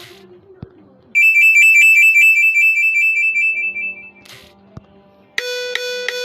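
Nokia N86 ringtones playing one after another. About a second in, a loud, rapid warbling electronic beep sounds for about three seconds. Near the end, a different tone of quick repeated synthetic notes begins.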